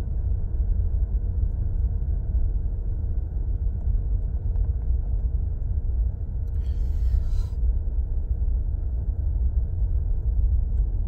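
Steady low rumble of a moving car heard from inside the cabin: road and engine noise while driving, with a brief hiss about two-thirds of the way through.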